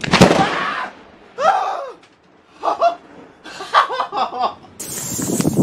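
A loud, sudden burst of noise right at the start that dies away within a second, followed by a person laughing in several short bursts. A steady hiss comes in near the end.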